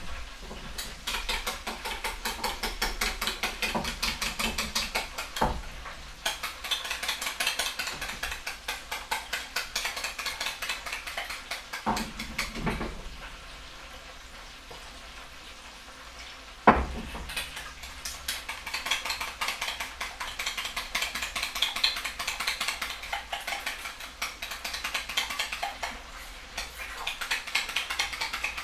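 Metal spoon stirring katsu sauce in a bowl, scraping the sides in a rapid steady rhythm. The stirring pauses for a few seconds in the middle, and a single sharp knock against the bowl comes just before it resumes.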